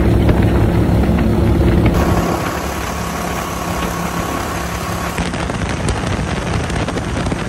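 GatorTail surface-drive mud motor, powered by a Briggs & Stratton Vanguard EFI 40 V-twin engine, running steadily at speed as the boat crosses open water, with a rush of wind and water over it.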